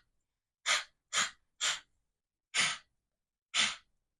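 A woman's breathy "h" exhalations, five short puffs of breath out through an open mouth: three quick ones, then two slower. This is the voiceless H sound being practised.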